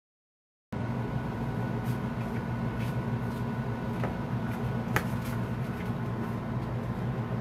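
Steady low room hum, like a running air conditioner or fan, starting abruptly under a second in, with a few faint clicks; the sharpest click comes about five seconds in.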